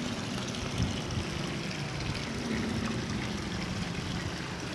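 Steady splashing of water pouring from a plastic pipe into a fish pond.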